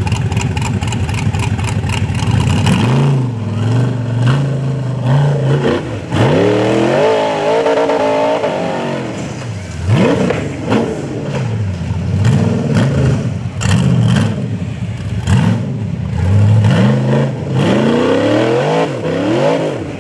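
Rock bouncer buggy's engine revving hard as it climbs, its pitch rising and falling again and again as the throttle is worked on and off.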